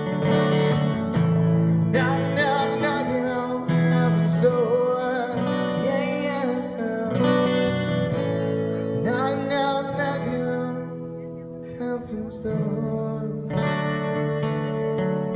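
A man singing into a microphone over a strummed steel-string travel guitar, played live through a small amplifier.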